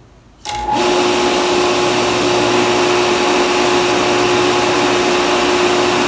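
Electric water pump motor switching on about half a second in, started by the float switches, then running steadily with a steady hum and fan noise.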